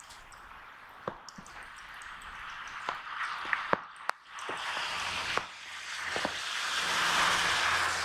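Outdoor background noise: a hiss that builds up over the last few seconds, with scattered sharp ticks.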